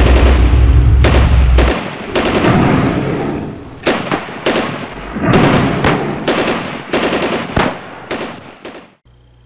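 Sustained automatic gunfire, many rapid shots in dense volleys, with a deep rumble under the first two seconds. It cuts off suddenly shortly before the end.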